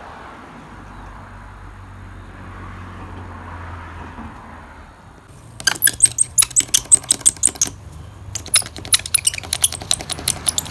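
Razor blade scraped in quick strokes across windshield glass, taking off the cured excess repair resin. It starts about halfway in, at roughly five sharp strokes a second, pauses briefly, then runs on.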